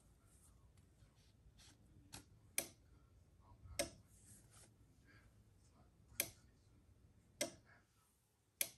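Faint sharp clicks at irregular intervals: five clear ones about a second or more apart, with fainter ticks between.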